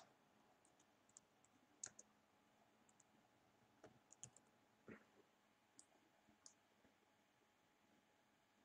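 Near silence with faint, scattered clicks of a computer keyboard and mouse: about a dozen light keystrokes and clicks spread irregularly through the stretch.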